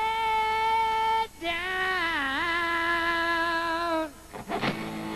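Unaccompanied high male rock vocal in a live performance, holding long wailing notes into the microphone with no band playing. First a steady note, then after a brief break a lower held note that dips in pitch and comes back, then a short, rougher, wavering cry near the end.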